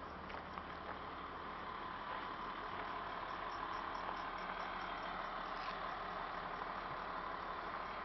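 School bus engine idling with a steady, even hum.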